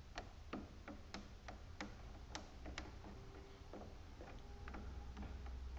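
Irregular sharp metal clicks and ticks from working the spring hose clamps on a lawn tractor's fuel line to loosen and slide them back, over a low steady hum.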